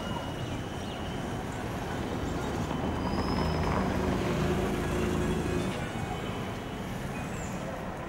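Street traffic noise, with a vehicle engine growing louder and passing from about three to six seconds in.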